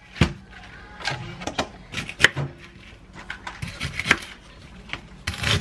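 Bok choy set down on a wooden cutting board, then a kitchen knife trimming the stem ends, knocking on the board in irregular sharp clicks and crunches. A brief rustle comes near the end.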